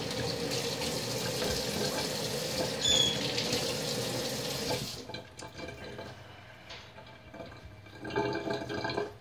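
Water running steadily, as from a tap, cut off abruptly about five seconds in; a few faint clicks and rustles follow near the end.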